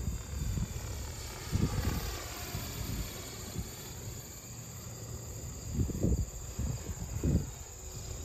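Skylark EH-1 electric RC helicopter in flight, its motor and rotor a faint whine that drifts slowly up and down in pitch. Gusts of wind buffet the microphone in low rumbles, the loudest about two seconds in and again around six and seven seconds in.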